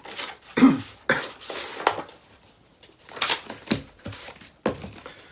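A book's paper pages rustling and flapping as they are flipped through quickly, in several separate bursts of about half a second each.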